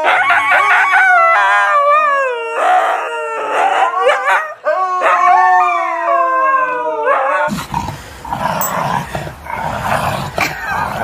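A husky-type dog howling in a string of long wavering notes that rise and fall, stopping about seven and a half seconds in. Then comes a stretch of rustling noise with no clear pitch.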